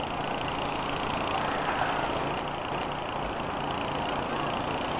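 School bus engines running together in a steady, dense wash of vehicle noise.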